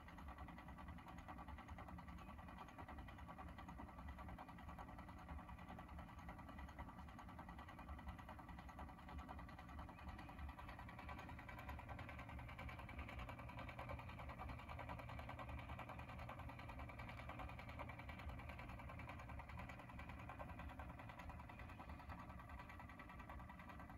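Rotating-globe mechanism of a 1976 Schlitz lighted beer sign running, with a faint steady ticking like an old wind-up alarm clock over a low hum; the seller takes the ticking to be probably normal for its design and age.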